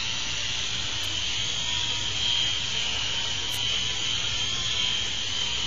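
Toy remote-control helicopter's small electric motor and rotors running: a steady, high-pitched whir.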